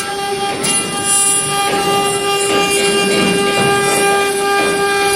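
CNC wood router spindle running with a steady high whine while the bit cuts wood, the cutting noise swelling and fading every second or so as the tool moves through the relief.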